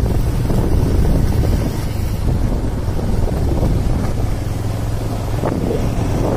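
Wind buffeting the microphone over the steady running of a motorcycle engine, recorded from a moving motorbike.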